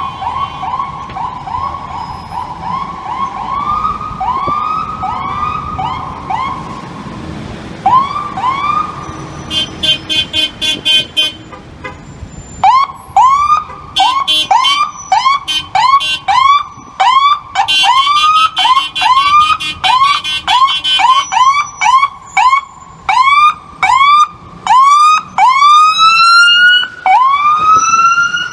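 Ambulance electronic siren yelping in quick rising sweeps, about two a second, getting much louder about 13 seconds in as it comes close. In stretches a faster pulsing siren tone sounds over it, and near the end the sweeps slow and lengthen as it passes.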